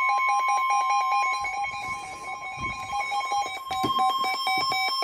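NOAA Weather Radio warning alert tone: a steady, single high electronic tone, layered with a rapidly pulsing electronic beep. The tone signals that a new warning broadcast, here a severe thunderstorm warning, is about to follow.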